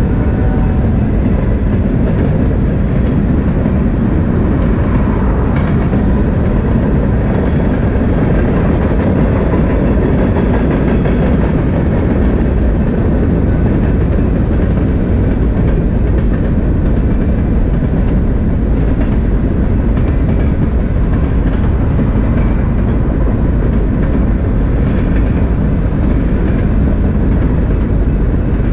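Freight cars of a long train rolling past on the rails: a steady, loud rumble of steel wheels on track.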